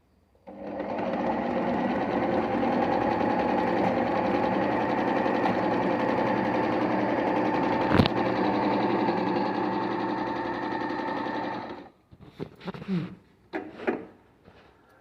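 Singer electric sewing machine stitching at a steady speed for about eleven seconds, with one sharp click about eight seconds in. It stops abruptly, followed by a few short handling sounds.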